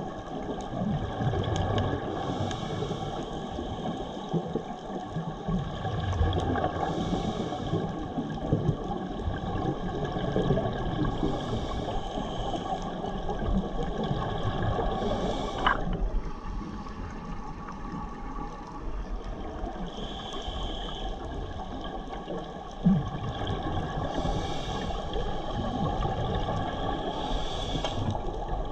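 Underwater sound of a scuba diver's regulator breathing: a hiss every four or five seconds, with bubbles gurgling over a steady underwater rumble. There is a single sharp click about halfway through and a short low thump later on.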